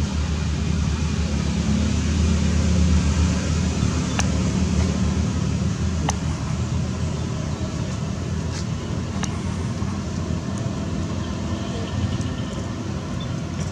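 Steady low rumbling background noise with a few faint ticks and no calls from the monkeys.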